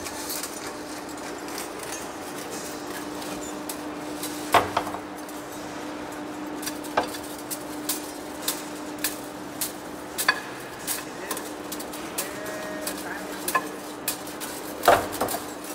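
Heavy-duty lathe turning a large steel rotor shaft, with a steady hum from the machine as the tool bit cuts. Sharp metallic clinks and ticks come irregularly from steel chips breaking off at the tool. The clinks are loudest about four and a half seconds in and again near the end, where they come more often.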